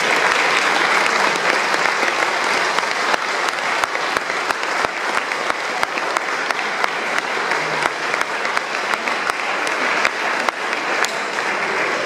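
Audience applauding steadily, with individual sharp claps standing out.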